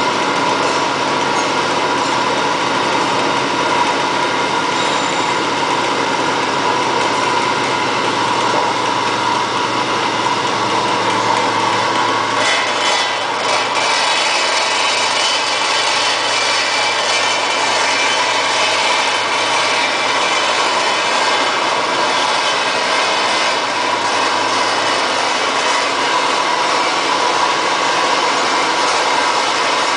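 Stainless steel circular vibro screen running, a steady mechanical drone from its vibratory motor and shaking sieve deck while it grades a fine white powder.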